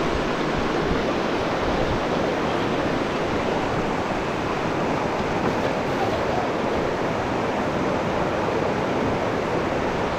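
River water rushing steadily, a constant even roar with no breaks.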